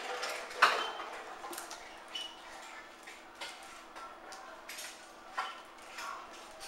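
Kitten's claws scratching and snagging on a sisal-rope scratching post, in irregular short scrapes and knocks, the loudest about half a second in.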